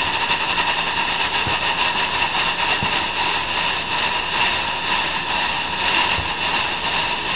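Antari fog machine running, a loud steady hiss of fog being forced up a pipe and out through the small holes of a fog-curtain pipe along an archway.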